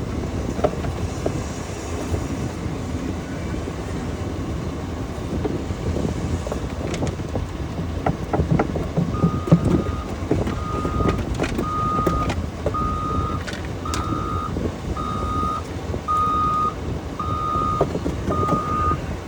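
Backup alarm of a heavy machine beeping about once a second, starting about halfway through, over a steady low engine rumble, with a few knocks.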